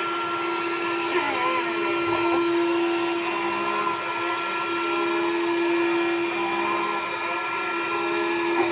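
Window-cleaning robot's suction fan motor running with a steady whine.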